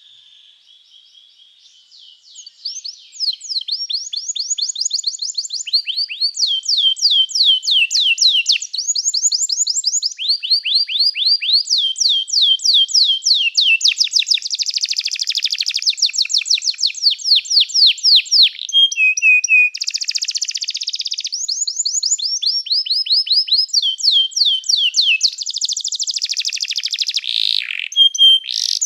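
Domestic canary singing: after a faint first couple of seconds, a long unbroken song of rapid repeated trills. Each phrase is a fast run of identical notes held for a second or two before switching to a new roll.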